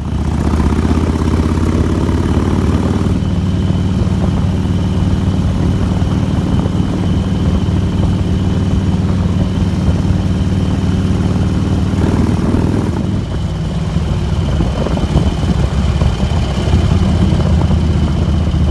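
Motorcycle engine running at a steady speed, with a constant rush of noise over it.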